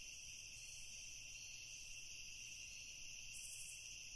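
Faint, steady high-pitched chirring of insects.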